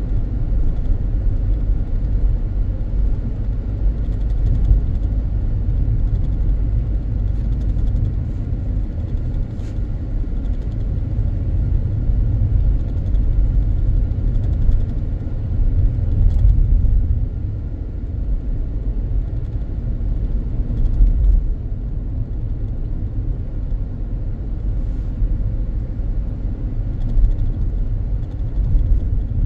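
A car driving along: a steady low rumble of road and engine noise that rises and falls a little with the drive.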